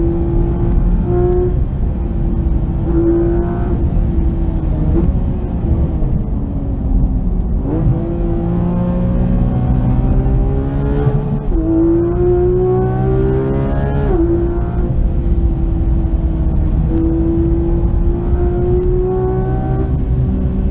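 2016 Porsche 911 GT3 RS's naturally aspirated 4.0-litre flat-six at full racing pace, heard from inside the cabin over road and wind rumble. Its pitch sinks as the car slows for a corner about five seconds in, then climbs hard through the gears with two quick upshifts, and holds high revs near the end.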